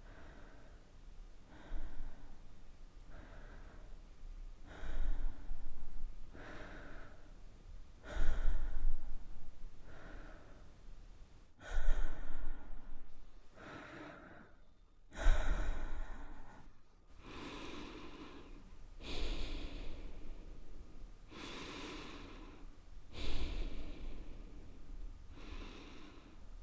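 A woman breathing softly and audibly, a steady series of separate in- and out-breaths about every one to two seconds, some breaths louder and more sigh-like than others.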